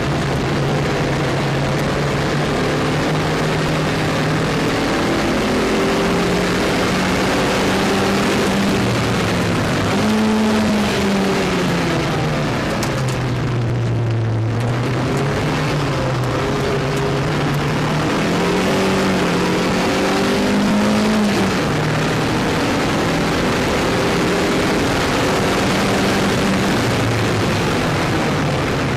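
Lotus Elise engine heard from inside the car on a fast track lap, its revs climbing and dropping again and again through acceleration, gear changes and braking, with a brief lull about halfway. A constant hiss runs underneath.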